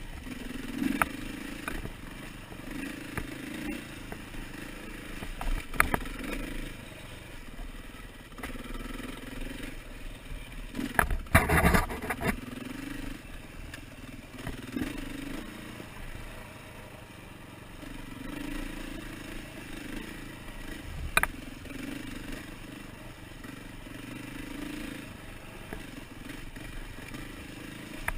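KTM 450 single-cylinder four-stroke dirt bike engine running under load, the throttle opening and closing every few seconds, with sharp knocks and clatter from the bike riding over rocks, the loudest burst about eleven seconds in.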